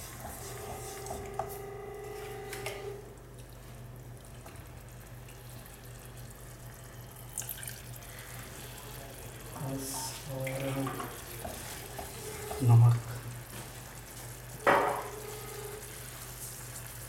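Kitchen background: a steady low hum with a faint watery sound, a dull thump about thirteen seconds in and a sharp knock about two seconds later.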